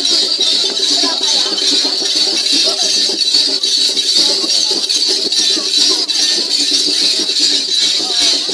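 Accompaniment for a Vagla zingo dance: many voices singing and calling over a steady rattling beat, loud and continuous.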